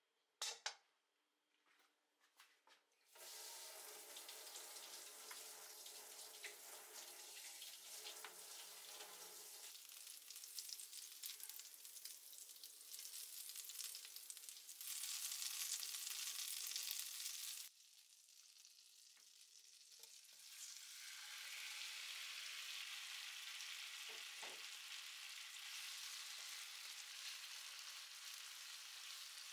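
A knock as butter goes into a hot nonstick frying pan, then the butter sizzling and foaming as a spatula pushes it around. Midway the sizzle drops off suddenly, then picks up again as sticks of nagaimo (Chinese yam) fry in the butter, with a few light knocks of the spatula.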